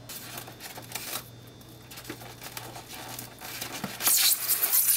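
Clear plastic wrapping crinkling and rustling as hands pull at it, much louder for about the last second.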